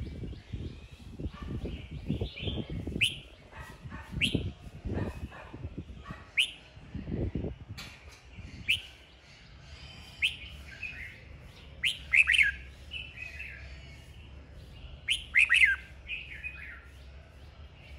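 Red-whiskered bulbul singing its fired-up fighting song: short, loud chirping phrases with sharp downward-sweeping notes, coming every second or few seconds and thinning out toward the end.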